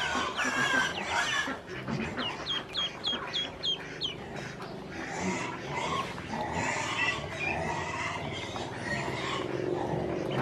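Ducklings peeping: a quick run of short, high, falling peeps about two seconds in, then softer, lower animal calls.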